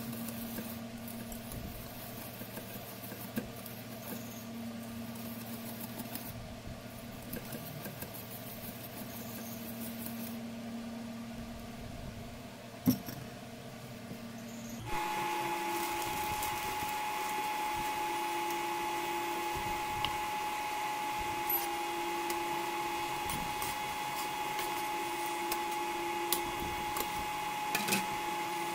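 Induction cooktop humming under a stainless steel frying pan: a steady electrical whine with a lower tone that pulses on and off every couple of seconds, its pitch jumping higher about halfway. Faint scattered ticks from butter melting in the pan near the end.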